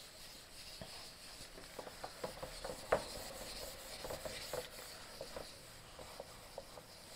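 Handheld eraser block rubbing across a whiteboard, a faint swishing wipe with scattered small clicks, the sharpest about three seconds in.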